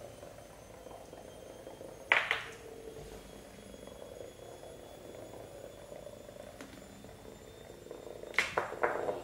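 Hexbug Nano vibrating toy bug buzzing steadily as it skitters across a hardwood floor. A sharp clatter comes about two seconds in, and a quick run of clicks and knocks comes near the end.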